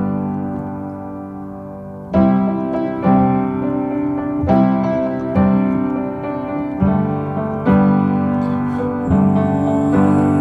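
Piano music: slow chords struck about once a second and left to ring, an instrumental passage between sung lines of a song.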